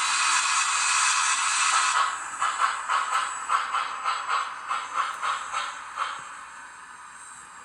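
Sound decoder of an MTH HO-scale Union Pacific Big Boy 4014 model playing steam locomotive sounds through its small speaker: a loud steady steam hiss, then about three chuffs a second for some four seconds, fading to a soft hiss.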